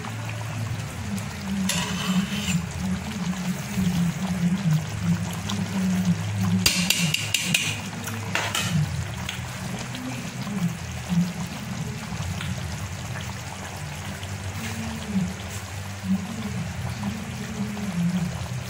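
A pot of thick beef stew bubbling as it simmers, with two brief sharper noises about two and seven seconds in.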